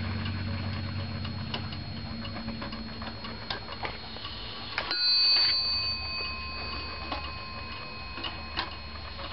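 Warmink Dutch Sallander wall clock's weight-driven brass movement ticking, with sharp ticks about once a second. About halfway there is a brief, louder rush of noise.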